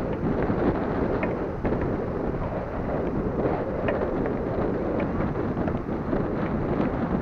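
Wind buffeting the microphone: a steady, low rushing noise with no let-up.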